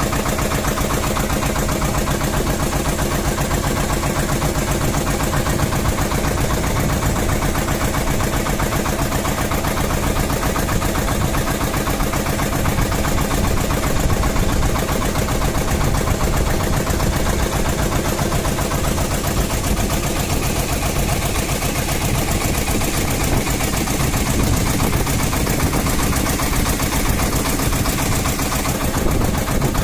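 A small boat's engine running steadily under way, with a fast, even knocking beat, heard close up from on board.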